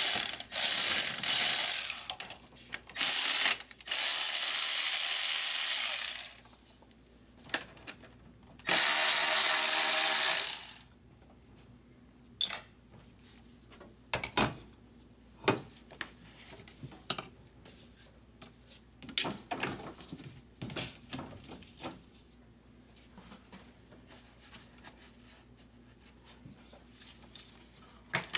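A power ratchet runs in four bursts, the longest about two and a half seconds, loosening fasteners in a Sprinter diesel's engine bay. After that come scattered light clicks and knocks of metal tools and parts.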